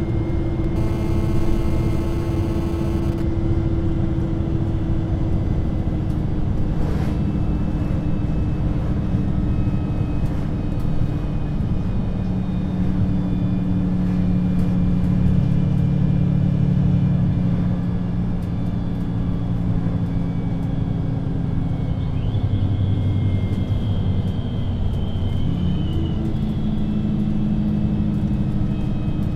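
VDL Citea LLE 120 city bus's diesel engine running steadily, its low drone shifting slowly up and down in pitch with the load.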